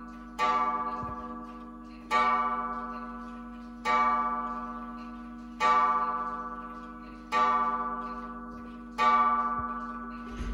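Junghans wall clock striking the hour on its gong for eight o'clock: six even strokes about 1.7 seconds apart. Each stroke rings out and fades before the next.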